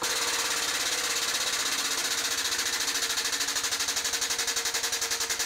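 Shop-built single-ram press brake powering its ram down through several flat bars at once. Its drive starts suddenly and runs with a fast, even pulsing over a steady hum.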